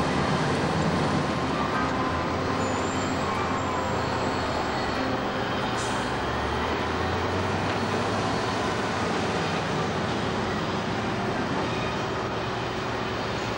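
Diesel engine of a large wheel loader running steadily, a continuous low rumble, as the machine drives with a load of logs in its grapple.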